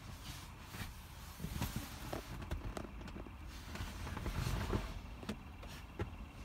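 Footsteps and handheld phone handling noise: scattered knocks and rustles over a steady low rumble.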